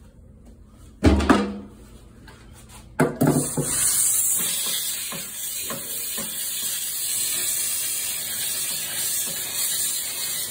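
A knock about a second in. From about three seconds in, a steam cleaner wand jets steam onto greasy metal grates in a sink with a steady, loud hiss.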